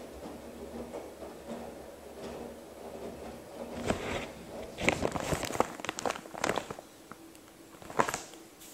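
Girbau commercial front-load washer tumbling a load in its hot main wash: a steady low hum, then wet laundry slapping and water sloshing in the drum in clusters about halfway through and again near the end.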